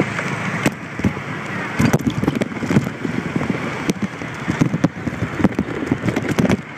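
Wind buffeting and rustling on a phone microphone carried on a moving moped, with many irregular crackles and pops.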